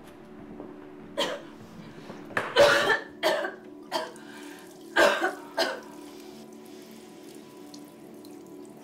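A person coughing in a fit of about six coughs spread over some five seconds, the loudest in the middle, over low sustained musical tones.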